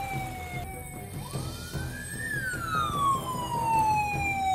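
Emergency-vehicle siren wailing: its pitch sinks, climbs again about a second in, then falls slowly through the rest, one long rise-and-fall cycle. Background music plays underneath.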